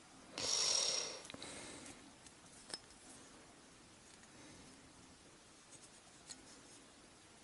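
A short scratchy rasp about half a second in, fading over the next second, then a few faint clicks: a hand pin vise twisting a fine drill bit in a tiny wooden rigging block to open up its hole, too small for the rigging thread.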